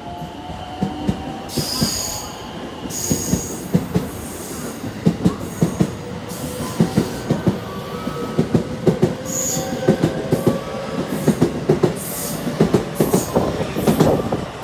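Ten-car JR West electric rapid train pulling out of the station and gathering speed past the platform. Its wheels clatter over rail joints and points in quickening clacks, and the traction motors give a slowly rising whine, with brief high wheel squeals about two, three and nine seconds in. It is loudest near the end as the last car goes by.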